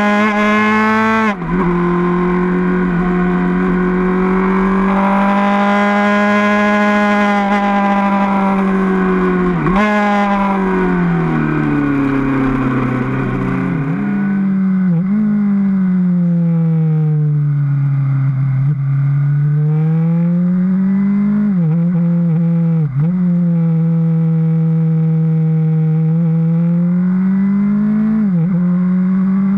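Suzuki GSR750 inline-four motorcycle engine running under way, its note holding high, then sinking and climbing again with the throttle. The pitch drops suddenly several times, as at gear changes.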